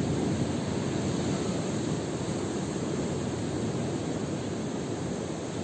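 Steady low rushing noise of sea surf and wind at a rocky shore, with no other sound standing out.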